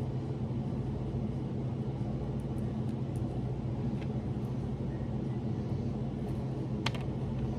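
Steady low hum of background noise, with a few faint small clicks from the plastic pieces of a toy doll being handled; one sharper click comes near the end.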